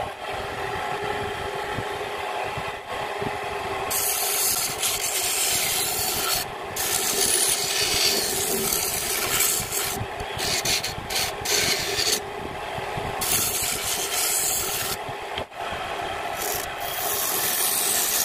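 Homemade wood lathe running with a steady motor hum while a hand-held turning tool cuts the spinning wood blank. There are several scraping, hissing cuts of a few seconds each, starting about four seconds in.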